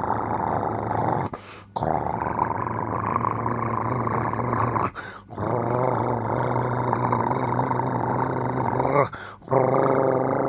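Heavy snoring: a continuous, low-pitched, rough rumble drawn out over long breaths, broken by three short pauses about every four seconds.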